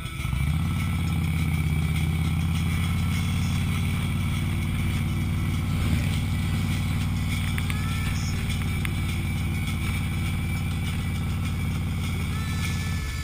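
Motorcycle engine running at a steady cruising speed, an even low drone that holds without revving, heard from on the moving bike.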